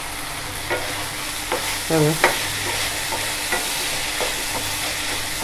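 Chopped vegetables sizzling in oil in a kadai while a wooden spatula stirs them, with a steady hiss and small irregular scrapes and taps of the spatula against the pan every second or so.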